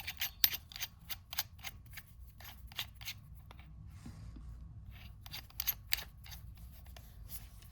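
Irregular light metallic clicks and rattles of drill bits being handled and fitted into the chuck of a small hand drill, with a quieter gap in the middle.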